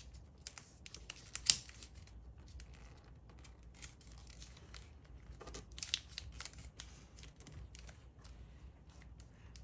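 Colored origami paper rustling and crinkling as it is folded and creased by hand, with scattered sharp crackles, the loudest about a second and a half in and another cluster near six seconds.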